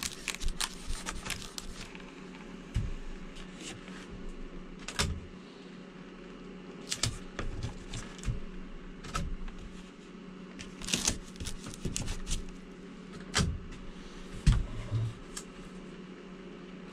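Thin 18-gauge electrical wire being pulled and threaded by hand through holes drilled in wooden rafters overhead: irregular rustles, scrapes and light clicks, over a steady low hum.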